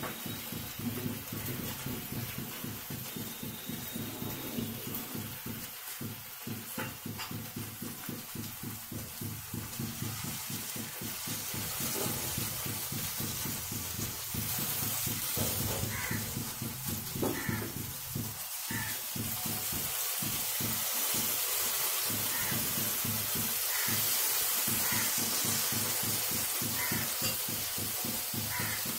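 Rasgullas sizzling as they fry in hot ghee in a nonstick pan, a steady hiss that grows louder about halfway through as they brown. A few light taps of a wooden spatula turning them, around the middle.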